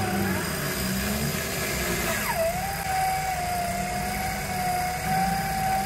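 4x4 engine running while a winch whines steadily, hauling the mud-stuck vehicle forward on its line. The whine comes in about two seconds in, dropping quickly in pitch as it takes the load, then holds steady.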